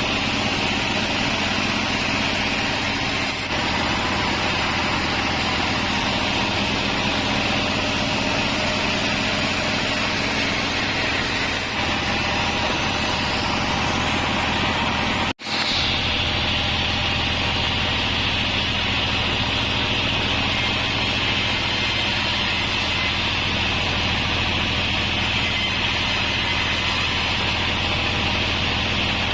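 A 36-inch sawmill bandsaw running steadily, sawing wadang timber, with a low machine hum under a high blade whine. The sound drops out for an instant about halfway, then carries on.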